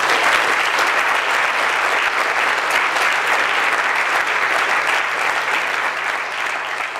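Audience applauding, a dense, steady clapping that begins to fade near the end.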